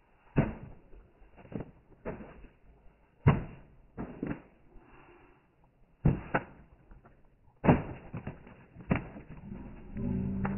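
A series of sharp knocks at irregular intervals, about ten in all, the loudest a little over three seconds in and just before eight seconds.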